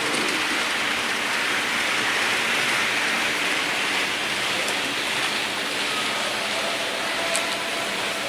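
Model diesel locomotive hauling a train of hopper wagons, its wheels rolling on the model track in a steady rushing noise. A faint steady whine joins in about six seconds in.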